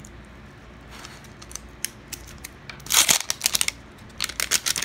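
Printed plastic wrapper being torn and peeled off a Mini Brands capsule ball, crinkling and crackling in quick bursts from about three seconds in.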